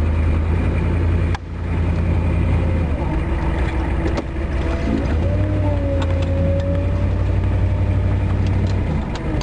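Old pickup truck's engine running warm as it is driven and moved, a steady low rumble that drops out sharply for a moment about a second and a half in.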